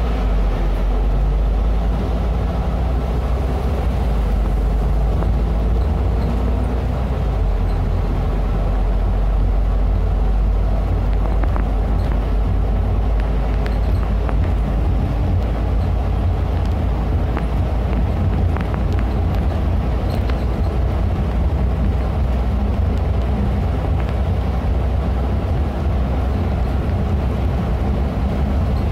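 Cabin sound of a Neobus Mega BRT articulated bus driving: a steady low engine drone and road rumble, with a few light rattles around the middle.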